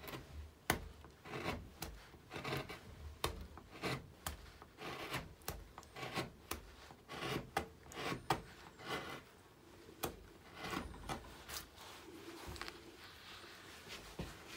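Carving gouge pushed by hand through alder wood, making a quick, irregular series of short scraping cuts, about one or two a second, thinning out near the end.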